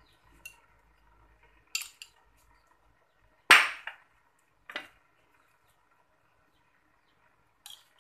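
Dishes and utensils knocking and clinking as food is handled and served into a metal bowl: about five separate sharp knocks, the loudest about three and a half seconds in.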